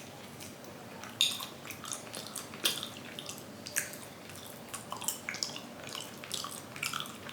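Close, wet mouth sounds of someone chewing: irregular soft squishy clicks, several a second, over faint room hiss.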